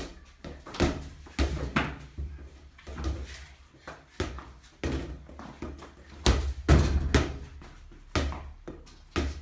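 A small ball being kicked and bouncing off a tiled floor and walls in a small room, a string of echoing thuds and slaps. The loudest come in a cluster about six to seven seconds in.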